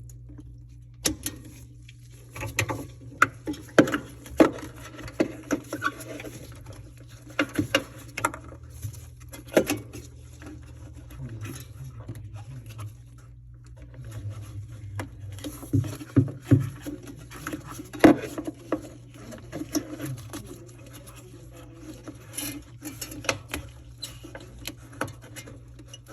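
Irregular clicks, taps and knocks of plastic and metal refrigerator parts being handled and fitted back into the freezer compartment, with a few louder knocks about four, ten, sixteen and eighteen seconds in.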